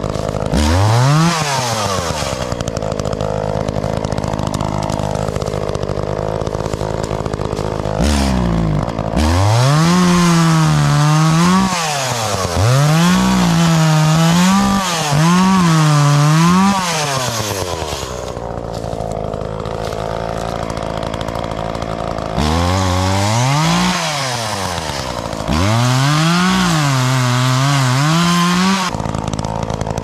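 Two-stroke Echo chainsaw with a new chain, idling and then revved up to full speed several times as it cuts through branches. The pitch climbs, dips under load and falls back to idle between runs.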